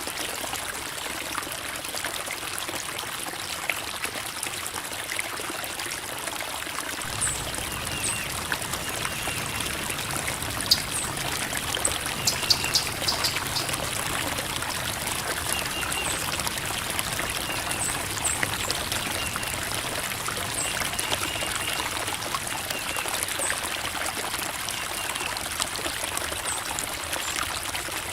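Creek water steadily babbling and trickling over rocks.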